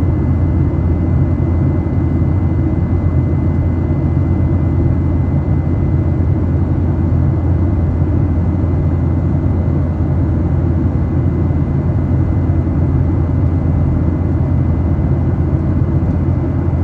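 Steady drone inside an airplane cabin in flight: engine and airflow noise, strongest in the low range, with a faint thin steady whine above it.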